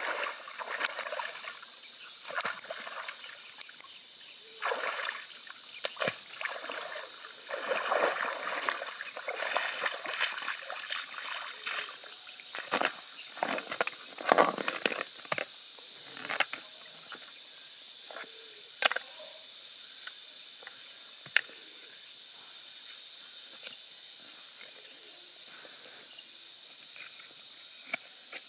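Footsteps sloshing and splashing through shallow water for about the first half. A loud clatter follows as a basket of freshwater mussels is tipped onto stony ground, then a few sharp clicks of shells set down on the gravel, over a steady high insect drone.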